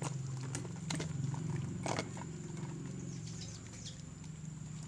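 Homemade glue slime being kneaded and pulled by hand, with a few sharp wet pops and smacks near the start and at about one and two seconds in, then faint sticky crackles: the slime is still very sticky. A steady low hum runs underneath.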